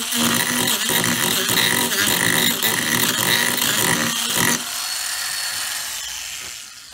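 Proxxon long-neck mini angle grinder fitted with a King Arthur's Tools 50 mm, 8-tooth mini chainsaw carving disc, cutting into a wood block. About four and a half seconds in the disc comes clear of the wood and the tool runs on more quietly, then fades out near the end.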